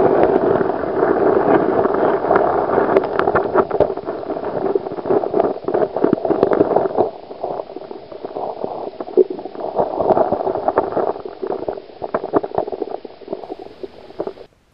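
Muffled rush and gurgle of stream water picked up underwater by the camera, with many small clicks and knocks running through it. It eases about halfway, swells again, then cuts off suddenly near the end.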